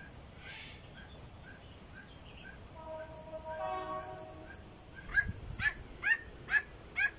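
Birds calling in an aviary: a run of short, evenly repeated high chirps, then from about five seconds in a string of louder, sharp calls about two a second.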